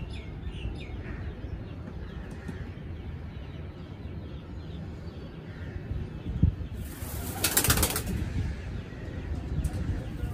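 A pigeon's wings flapping in one burst of about a second, roughly seven seconds in, over a steady low rumble.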